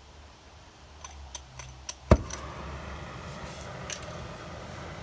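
Flint striker clicking several times at an oxy-fuel cutting torch's tip, then the gas lights with a sharp pop about two seconds in and the flame burns with a steady hiss.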